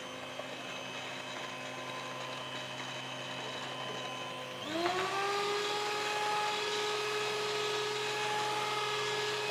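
Electric stand mixer running with its wire whisk beating runny cake batter in a steel bowl: a steady motor whine. About halfway it is sped up, the pitch rising and then holding higher and a little louder.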